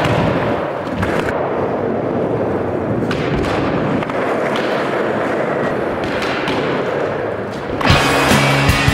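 Skateboard wheels rolling on a concrete floor with a steady rolling noise, broken by sharp clacks of the board hitting and sliding on a low wooden box, about a second in, around three seconds and again past four seconds. Loud rock music comes in near the end.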